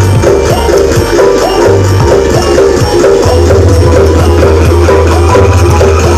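Loud music with fast, repeating percussion over a heavy bass line, played through a large street sound system; the bass holds steady from about three seconds in.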